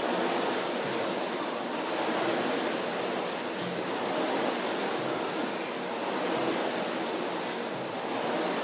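Concept2 indoor rower's air-resistance fan flywheel spinning with a steady rushing noise that swells with each stroke, about every two seconds.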